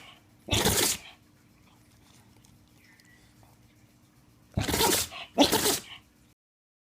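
An animal sneezing three times: once about half a second in, then twice in quick succession near the end, each a short, sharp burst of breath.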